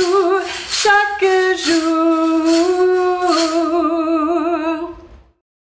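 A woman singing unaccompanied, ending the song on one long held note with vibrato that fades out about five seconds in.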